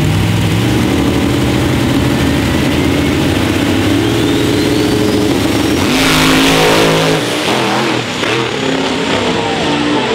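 Drag race cars at the starting line: a Fox-body Mustang's engine held at high revs with a thin rising whine over it, then a loud launch about six seconds in, the engine pitch climbing as the cars pull away down the track and the sound fades.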